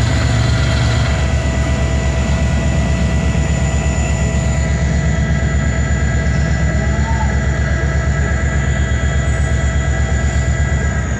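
Pakistan Railways AGE-30 diesel-electric locomotive running close by: a heavy, rhythmic engine throb with a steady high whine over it.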